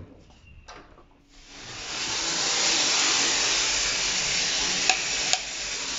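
Water spraying hard from a bidet sprayer hose: a steady hiss that starts about a second and a half in. Two light clicks near the end.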